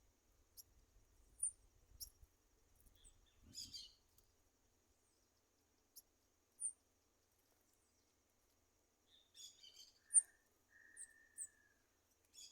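Several wild birds calling: sparse short high chirps and brief chattering bursts, with a quiet gap in the middle and a steady whistled note held for about a second and a half near the end.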